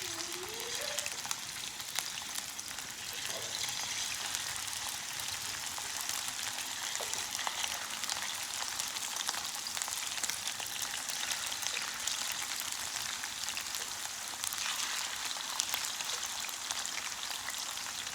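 Chicken tenders coated only in egg white frying in hot chicken fat (schmaltz) at about 350 degrees: a steady sizzle full of fine crackling and spitting.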